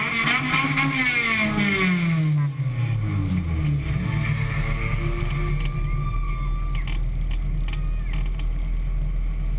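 Compact touring race car engines at the track. One car's engine note falls steadily in pitch over the first three seconds or so, as it passes or slows, then engines keep running at a lower, steady pitch.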